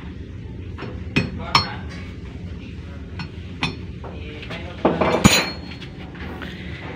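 Hammer striking a steel punch set against a radiator pump housing: about five sharp metallic clinks with brief ringing at uneven intervals, the loudest pair a little past the middle. A steady low hum runs underneath.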